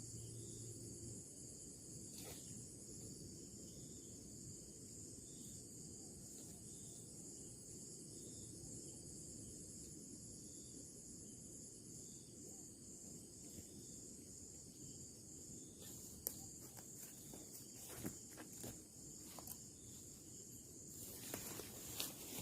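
Insects chirring steadily in a faint, high-pitched pulsing chorus over a low rumble. Several clicks and rustles come in the last few seconds, louder near the end.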